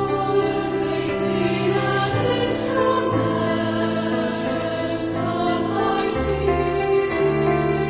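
Choral music: a choir singing slow, held chords that change every second or so.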